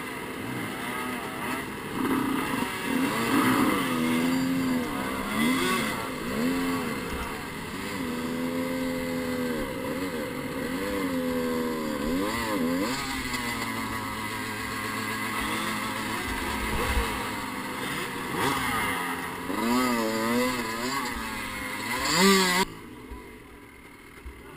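Dirt bike engine revving up and down again and again as the rider works the bike up a rocky climb. It gives a sharp rev near the end, then cuts out suddenly.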